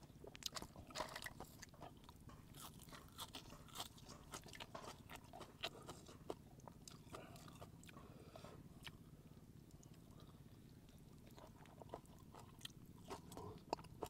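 Faint close-up chewing of raw spiny lobster meat, with many small scattered clicks and crackles from fingers picking meat out of the shell.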